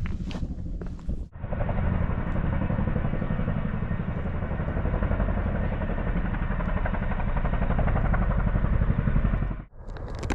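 Helicopter flying low overhead, its rotor chop a fast, steady pulsing. It cuts in about a second in and cuts off shortly before the end.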